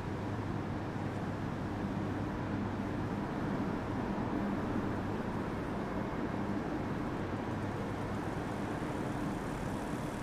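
Steady low drone like an idling diesel engine, with an even rumbling noise, holding level throughout.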